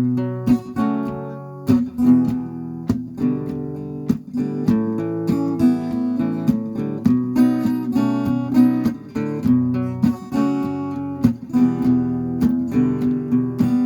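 Acoustic guitar strumming chords in a steady rhythm, with no voice: the instrumental intro of a song.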